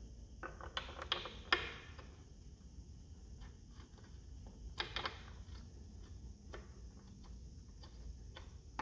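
Steel hinge pin being turned by hand into the Alpha One bell housing with a spline socket tool, to start its threads: faint metallic clicks and scraping, in short bursts about a second in and again about five seconds in, with light ticks between.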